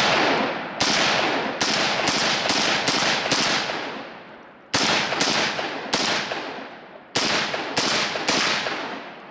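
.300 Blackout AR pistol firing a string of about a dozen semi-automatic shots, in quick clusters separated by short pauses, each shot trailing off in a long echo.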